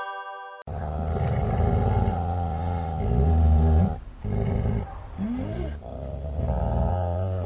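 Dogs growling in long, low, continuous growls that wax and wane, with two short breaks: two dogs working themselves up toward a fight.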